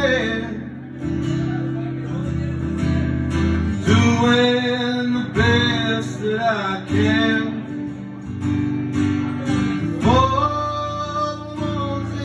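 Amplified acoustic guitar strummed live, with a man singing over it in phrases.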